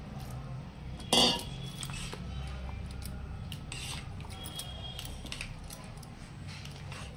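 Steel ladle stirring and scraping thick semolina batter in a stainless steel bowl, with many small clinks against the bowl. There is one loud, ringing metallic clink about a second in.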